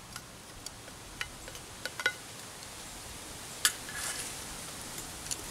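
Metal utensil clinking and tapping against a small camp cook pot as cubed Spam is added to black-eyed peas: a few sharp clinks, one ringing briefly about two seconds in and a louder one past the middle. Under them, a faint steady crackle and hiss from the wood-burning stove.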